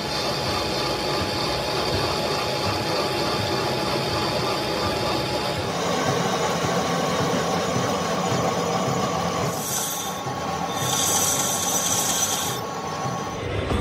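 Metal lathe turning a metal gear blank while its cutting tool faces and bores it: a steady metallic cutting and scraping over the machine's running noise, with a high-pitched screech for about two seconds near the end.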